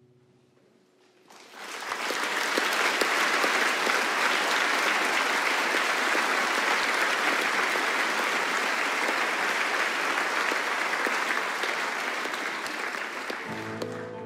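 Concert audience applauding, the clapping breaking out about a second in as the last notes die away. The applause thins near the end as plucked strings begin the next piece.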